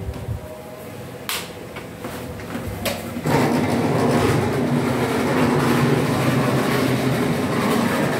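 Model railway locomotive running on the layout's track: motor hum and wheels rattling on the rails, coming in suddenly about three seconds in after a couple of sharp clicks.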